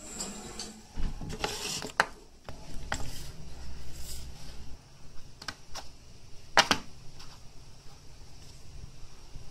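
Hands handling and picking at a Samsung HQ-S71 lithium-ion pouch phone battery: scattered clicks and taps with short rustles of the foil pouch, and one sharp click about two-thirds of the way through.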